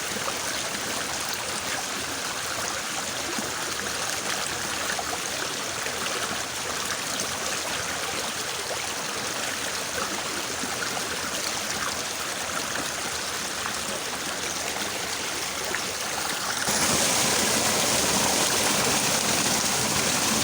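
Fairly swift small river babbling steadily. Partway through, near the end, it suddenly becomes louder and brighter.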